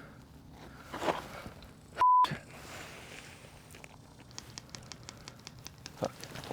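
A single steady high censor bleep, about a quarter of a second long, edited in about two seconds in; all other sound drops out while it plays. Around it are only quiet shuffling and scattered faint clicks of movement.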